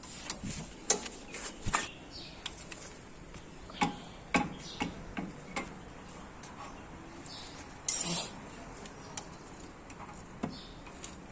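Scattered metallic clicks and clinks of tools and parts being handled, with one sharp, louder knock about eight seconds in.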